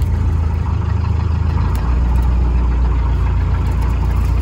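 A boat engine running steadily at a low, even idle-like speed.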